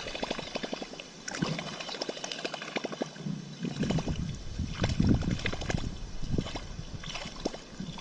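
Water sloshing and splashing in quick, irregular small splashes.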